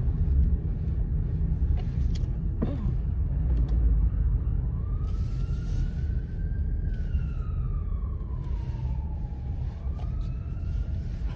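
Steady low rumble inside a car, with an emergency vehicle's siren wailing from about five seconds in: one slow rise, a long fall, then the start of another rise near the end.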